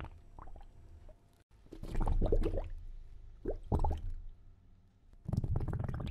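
Beluga whale calls heard underwater: three bursts of rapid clicking, creaky pulsed squawks over a low water rumble.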